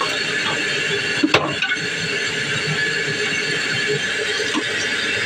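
Steady rushing noise in a kitchen, with a single sharp knock about a second in.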